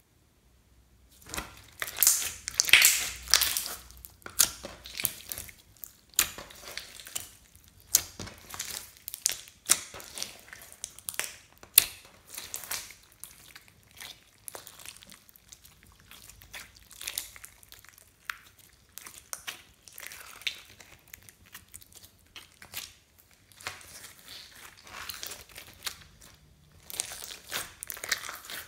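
Hands squeezing and kneading blue clear slime packed with small beads, making a dense run of crackling, popping clicks and squelches. It starts about a second in and is loudest in the first few seconds and again near the end.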